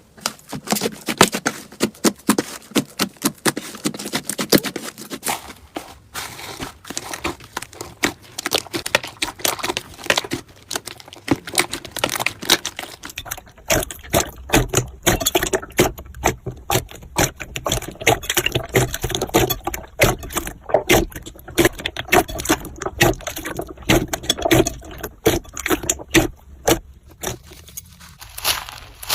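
Slime being squeezed, pressed and poked by hand, giving a dense run of sticky clicks and crackles. About halfway through the texture changes to a heavier, lower-sounding squishing with the clicks going on.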